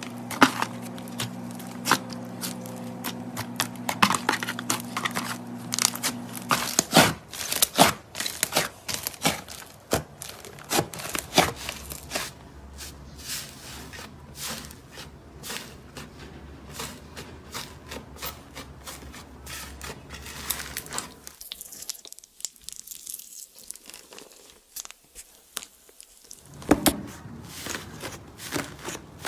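Slime being squeezed, stretched and pressed by hand, giving a dense run of sharp clicks, pops and crackles.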